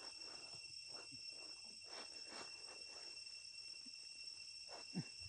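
Steady high-pitched insect drone, crickets or cicadas in chorus. Faint scattered sounds lie under it, and a short call falls in pitch near the end.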